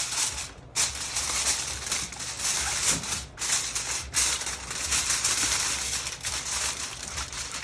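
Aluminium foil crinkling and rustling as it is pressed and folded over a baking dish of salmon, in an uneven run of crackles with short pauses.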